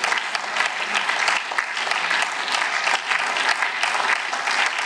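Applause from a chamber full of seated people: many hands clapping at once in a dense, steady stream of claps.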